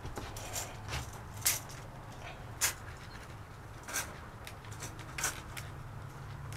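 Scattered light clicks and taps, roughly one a second, from a tape measure and plywood being handled while measuring, over a faint steady low hum.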